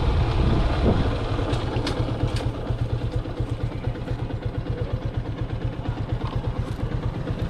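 Yamaha FZ-S motorcycle's single-cylinder engine idling with an even, rapid throb, with a few light clicks about two seconds in.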